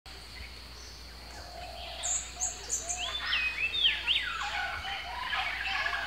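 Several birds calling at once: whistled notes that glide up and down, quick high chirps, and a run of short low notes, busier after about two seconds.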